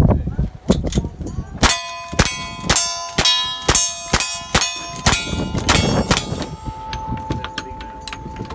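A rapid string of lever-action rifle shots, each followed by the clang of the bullet striking a steel target plate that rings on. After the string, a single steady ringing tone hangs on.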